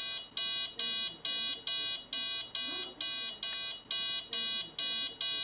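Electronic beeper sounding a rapid, steady train of high-pitched beeps, about two and a half a second, like an alarm.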